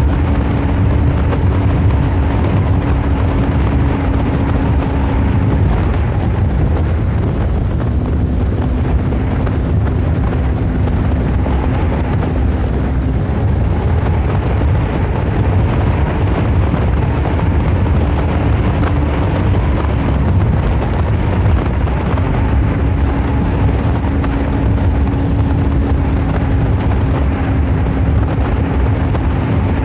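Steady rumble of wind on the microphone and water along the hull of a small boat under way. A faint hum drops out and returns several times.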